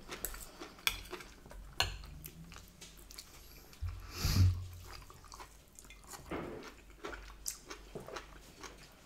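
People eating a roast dinner: soft chewing and mouth sounds with scattered short clicks of cutlery on plates, and one louder mouth sound a little past four seconds in.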